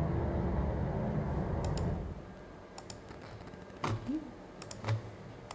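Laptop keyboard and trackpad clicks, a handful of short separate taps with a couple of soft thumps among them. A low steady background sound cuts off about two seconds in.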